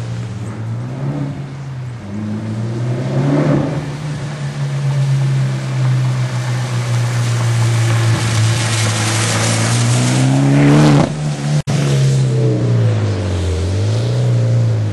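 2008 Mitsubishi Lancer Evolution X's turbocharged 2.0-litre four-cylinder running through an AMS single-exit exhaust and a test pipe (catalytic converter delete). It holds a steady note, swells briefly about three seconds in, and builds louder to a peak about eleven seconds in; near the end the pitch dips and climbs again.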